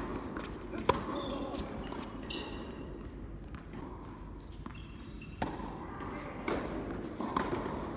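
Tennis ball struck by rackets and bouncing on a hard court: a string of sharp hits, the loudest about a second in, over a low murmur of voices.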